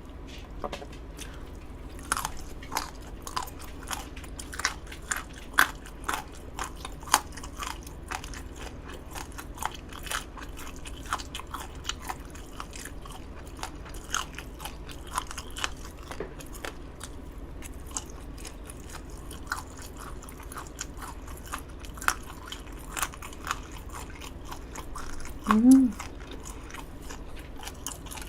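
A person chewing crisp, crunchy food close to the microphone, with sharp crunches about once or twice a second. Near the end comes a brief hummed "mm".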